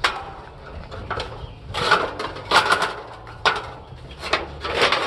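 Metal clanks, rattles and short scrapes as parts of an air conditioning unit are handled and pulled apart, in irregular bursts that grow busier about two seconds in and again near the end.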